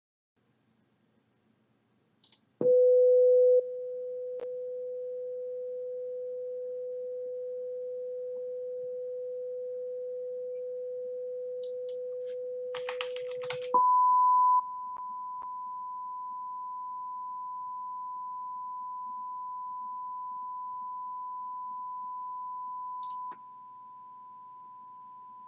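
A pure sine test tone from a PC signal generator, 500 Hz, starts about two and a half seconds in, loud for a moment and then softer. Around the middle there is a short burst of keyboard typing, and the tone then jumps to 1,000 Hz. It steps down in level twice: once just after the switch and again near the end.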